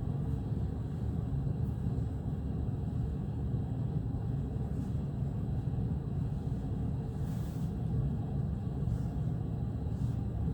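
Steady low rumbling noise, even in level throughout, with a few faint soft ticks on top.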